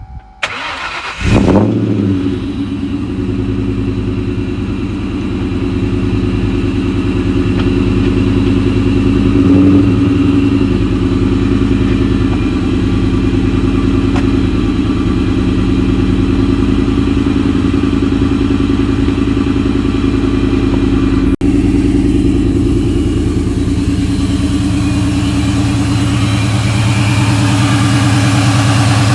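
A 2004 Mustang SVT Cobra's supercharged 4.6-litre V8 cranks for about a second, catches, and settles into a steady idle. This is the first start after a new cold air intake was fitted, and it runs fine.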